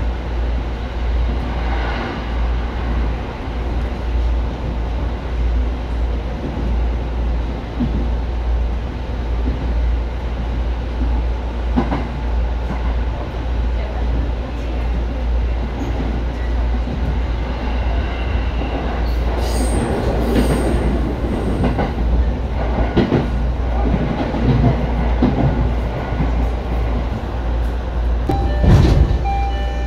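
Electric commuter train running along the line, heard from inside the leading car: a steady low rumble with occasional sharp wheel clicks and clatter over the track, the loudest clatter near the end.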